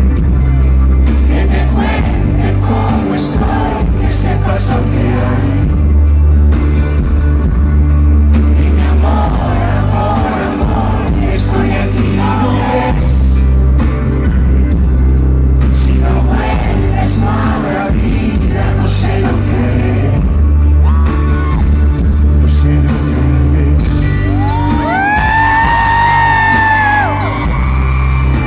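Live band playing through a concert PA: loud, steady bass and drums under guitars and keyboards, with snatches of singing. Near the end a high held note bends up and then back down.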